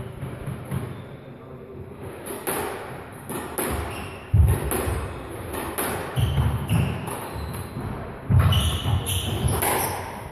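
Squash rally: the ball cracking off rackets and thudding against the court walls in quick succession, with trainers squeaking briefly on the wooden floor as the players move.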